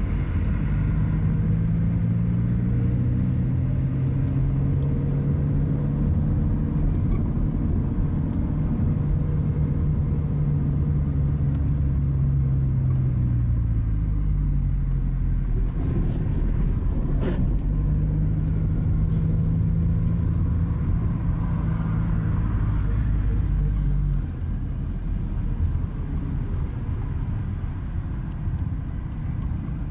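Car engine and road noise heard from inside a moving car: a steady low hum whose pitch dips a little before halfway, with a brief tick a little past halfway. About three-quarters of the way through the engine hum falls away and the sound gets quieter.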